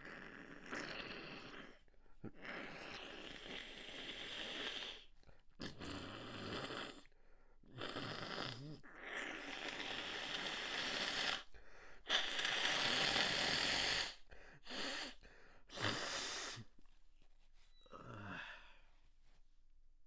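A person breathing hard through a sneezing fit: a run of long, noisy, breathy gasps and exhales that come one after another, then a short voiced sigh near the end.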